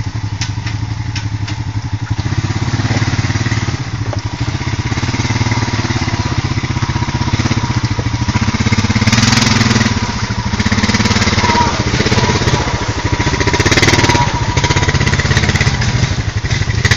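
Quad ATV engine running at low speed as it crawls through a muddy creek-bed trail, swelling louder a few times.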